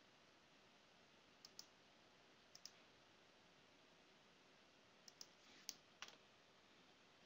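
Near silence broken by faint computer mouse clicks, mostly in quick pairs: two pairs in the first three seconds, then a cluster of four or five clicks about five to six seconds in.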